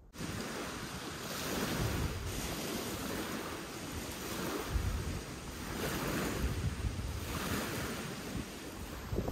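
Small lake waves washing and breaking on a pebble shore, swelling every couple of seconds, with wind gusting on the microphone.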